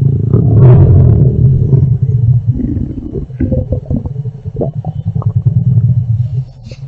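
Stomach growling: a loud, low, rippling rumble that peaks in the first two seconds, then breaks into gurgles and squelching pops before dying away near the end.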